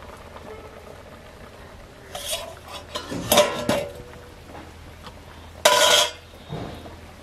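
Metal kitchenware being handled: utensils and pots knocking and scraping together. There are three clatters, about two seconds in, between three and four seconds (each with a brief metallic ring), and the loudest just before six seconds.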